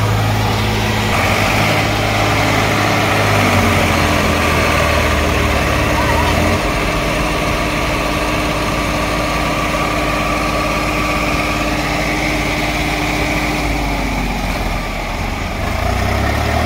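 Diesel engines of two Swaraj tractors running under load as one tows the other, stuck with its loaded trolley, across soft ground. The engine note steps down about three and a half and again about six and a half seconds in.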